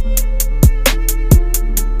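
Background music with a steady beat: a kick drum about every two-thirds of a second, quick hi-hat ticks between, and sustained string-like notes.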